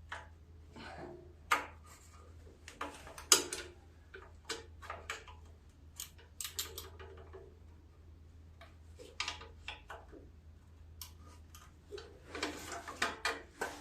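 Wrench on a 7/16 bolt of a Wheel Horse tractor's engine shroud: irregular metallic clicks and knocks as the bolt is worked loose in a tight spot, with a quicker run of clicks near the end. A faint steady low hum lies under it.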